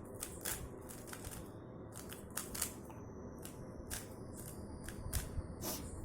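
RS3M 2020 3x3 speedcube being turned by hand: a quick, uneven run of plastic clicks and clacks as its layers snap round, about three or four a second.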